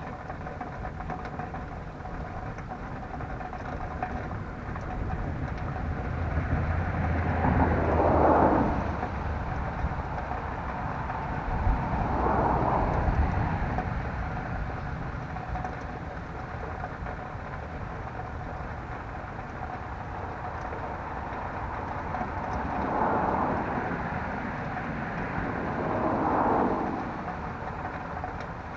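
Vehicles passing by one after another, four swells of road noise that each rise and fade over a couple of seconds above a steady background hiss.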